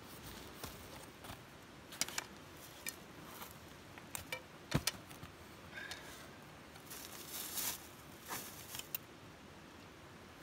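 Small metal tins clinking and clicking as they are opened and handled, a scattering of sharp clicks with the loudest a little before the middle. Then a rustling scratch as coiled twine is pulled apart into fluffy fire-starting tinder.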